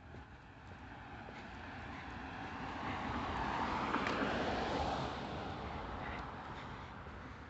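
A car driving past on the street. Its noise swells as it approaches, is loudest about four seconds in, then fades as it moves away.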